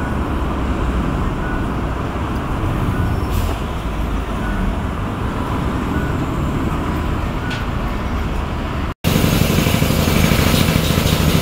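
Steady city street ambience of road traffic, a low rumble under a haze of noise. About nine seconds in it cuts off for an instant and comes back as a brighter, slightly louder street hiss.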